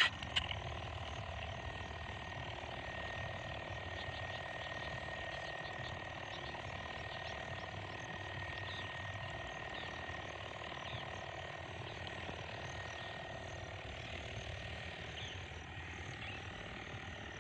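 Small engine of a power sprayer running steadily while weed killer is sprayed, a constant hum with a thin high whine held over it.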